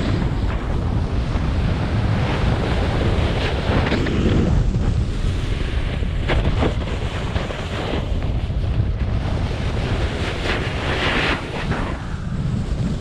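Wind buffeting a GoPro Hero 7 Black's microphone as a snowboard runs fast down the slope, with the board hissing and scraping over the snow and brief louder scrapes now and then.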